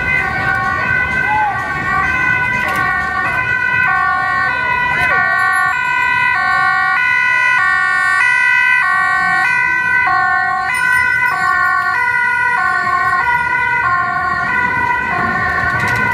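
Dutch ambulance two-tone siren, switching between a high and a low note about every two thirds of a second. It is loudest around the middle as the ambulance passes, over the low hubbub of a street crowd.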